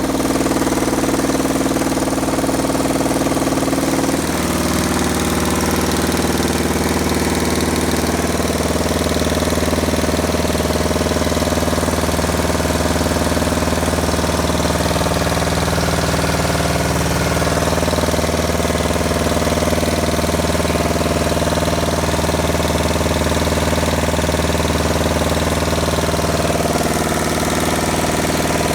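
Washing machine running with a loud, steady, helicopter-like drone and hum, stepping to a different pitch about four seconds in and again near the end. The noise persists even though the heating element and shock absorbers have been replaced, and black powder has been found under the machine.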